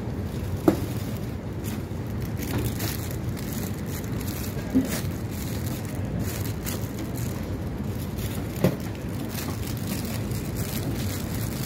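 Rose bouquets in plastic sleeves being handled and packed into a cardboard box: light rustling, with three sharp knocks about four seconds apart, over a steady low rumble of background noise.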